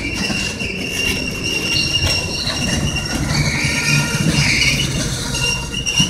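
A freight train of steel tank cars rolling past, with a steady high squeal from its running gear over a low rumble of wheels on rail and a few sharp knocks.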